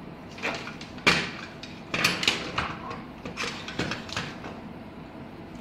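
Handling noise: a series of irregular knocks and clicks as an air conditioner's circuit board and its power cables are picked up and moved about on a wooden desk.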